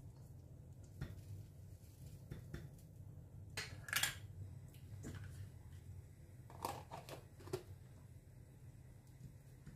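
Light knocks, clinks and rustles of small kitchen items being picked up and set down on a counter, a jar and cups among them. The loudest comes about four seconds in. A low steady hum runs underneath.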